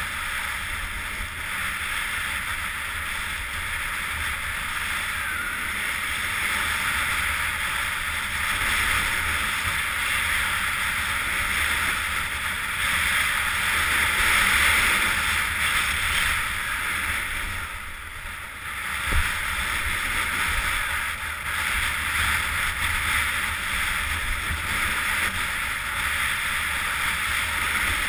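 Skis sliding and carving over packed snow with a steady hiss, over a low rumble of wind on the camera's microphone. About two-thirds of the way in the hiss briefly drops away, then a single knock.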